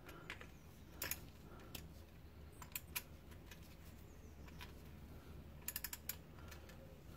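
Faint, scattered light metallic clicks and taps of a deep socket on an extension bar being fitted onto sump bolts, with a quick run of about five clicks near six seconds in.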